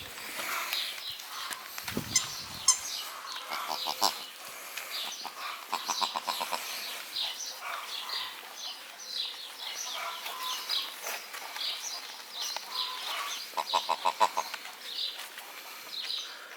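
Four-week-old American Bully puppies whimpering and squeaking: many short, high-pitched squeaks throughout, with quick runs of pulsed whines about six seconds in and again near the end.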